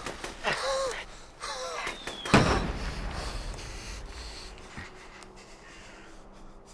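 Two short, rough, pitched sounds, then a heavy thud that dies away slowly. A faint low steady hum comes in near the end.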